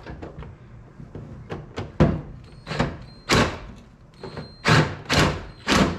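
Hand tools knocking and clanking against rusty metal parts of an old car's dashboard and heater housing, a string of irregular knocks, louder and closer together in the second half.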